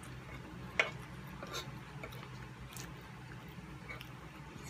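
Close-miked eating: soft wet chewing and a few sharp clicks, the loudest about a second in, as a fork cuts into a fried egg on a wooden board. A low steady hum runs underneath.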